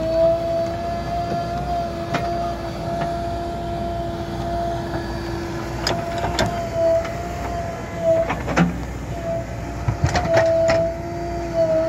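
JCB backhoe loader working: its diesel engine runs under load with a steady, slightly wavering whine from the hydraulics as the arm digs and swings. Sharp knocks and clanks come from the bucket as it digs and dumps soil, several around the middle and again near the end.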